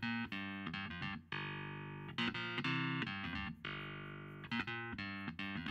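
Background music on a plucked guitar, with notes struck sharply and left to ring and fade in a repeating phrase.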